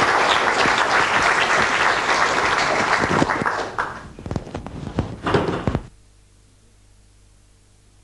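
Lecture-hall audience applauding. The applause thins out about four seconds in to a few last claps and thumps. The sound then cuts off abruptly about six seconds in, leaving only a faint hum.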